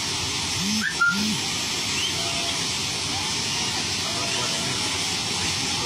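Steady rushing hiss of water spray as an electric train runs through floodwater over the track. A short sharp sound stands out about a second in.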